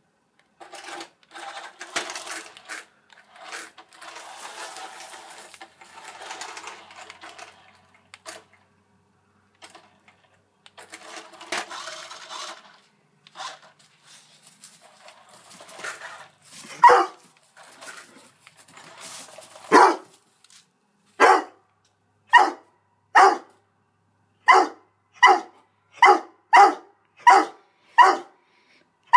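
Doberman barking in the second half: two loud single barks, then a steady run of about ten sharp barks, roughly one and a half a second — alarmed barking at a toy car it is scared of. Before the barking, only fainter uneven sounds come and go.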